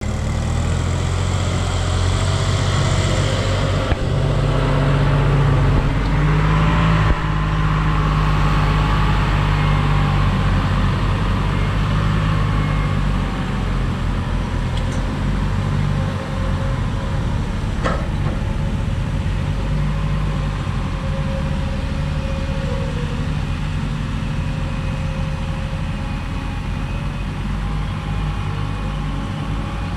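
Excavator's diesel engine running steadily, with a thinner whine above it. It grows louder a few seconds in and then slowly eases off, and there is a single sharp knock about 18 seconds in.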